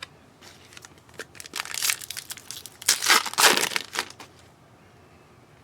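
Trading card pack wrapper being crinkled and torn open, in two bursts: one about a second and a half in, a louder one about three seconds in.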